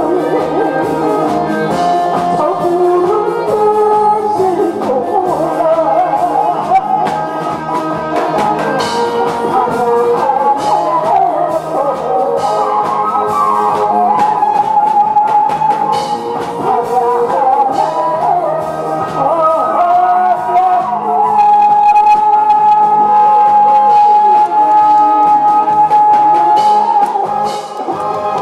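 A woman singing a Korean song into a microphone over a backing track with a steady beat. Near the end she holds one long note for several seconds.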